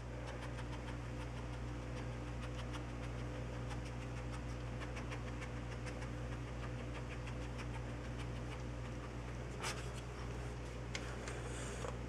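A dog's claws scratching and tapping at the face of a wall clock: many light, irregular clicks, with two sharper clicks near the end, over a steady low hum.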